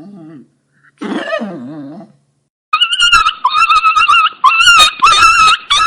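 Chihuahua puppy crying: a short faint whimper, then a wavering whine, then from about halfway a run of loud, high-pitched, quavering cries with short breaks between them.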